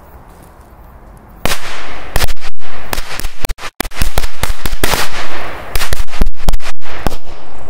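A bundle of firecrackers tied together into a 'sun' going off in a rapid, irregular string of loud bangs. The bangs start about a second and a half in and last about six seconds.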